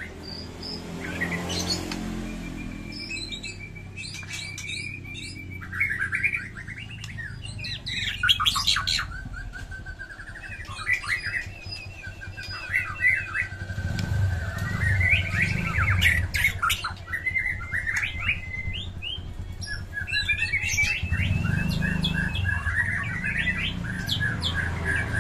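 White-rumped shama (murai batu) singing in fighting mode: a long, varied string of quick whistles, trills and rattling phrases, broken by short pauses.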